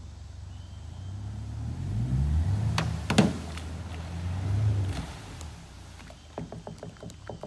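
Mercury outboard motor on an aluminum boat revving up in two swells as the boat is pushed through a shallow creek, with a sharp knock about three seconds in. A run of quick ticks and clicks follows near the end as the motor drops back.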